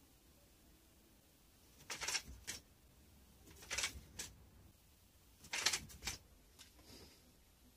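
Japanese sword swishing through the air in three fast draw-and-cut strokes, about two seconds apart, each swish followed about half a second later by a short sharp click; the last is the loudest.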